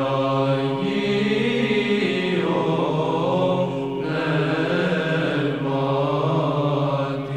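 Byzantine-style chanting: voices sing a slow melody over a steady drone note held underneath.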